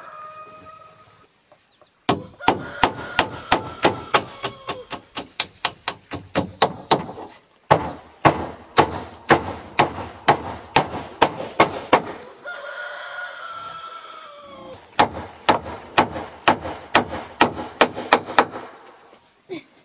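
A hammer drives roofing nails through a corrugated roofing sheet into a wooden frame, in three quick runs of sharp, even blows at about four a second. A rooster crows at the start and again in the pause between the second and third runs.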